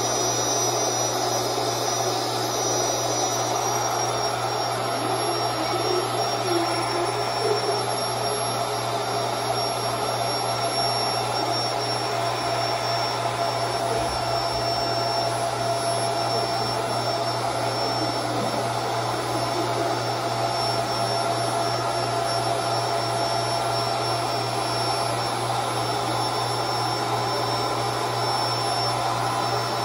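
Electric air pump blowing steadily into a large inflatable pool as it fills, with a constant hum and whine; the whine drops slightly in pitch about four seconds in.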